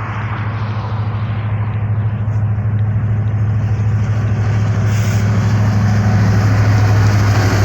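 Diesel-electric freight locomotives, a lash-up of EMD SD70ACe and GE AC4400CW/ES44AC units, approaching and passing with their engines running in a steady low drone that grows gradually louder.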